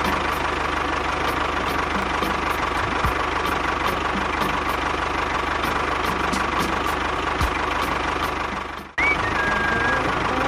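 A motor running steadily with a fine regular ticking. It breaks off briefly about nine seconds in and resumes, now with faint high gliding tones over it.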